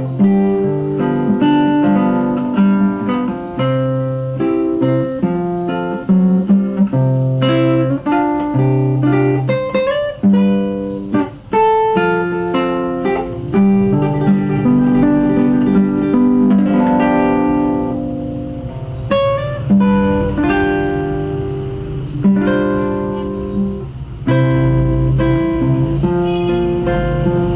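Solo nylon-string classical guitar, fingerpicked, playing a melody over bass notes and chords.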